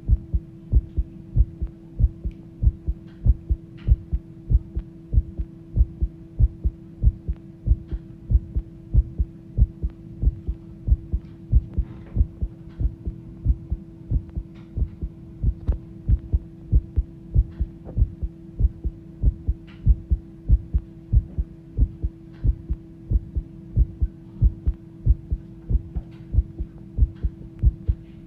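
A person's fast heartbeat: regular, evenly spaced double thuds over a steady low hum.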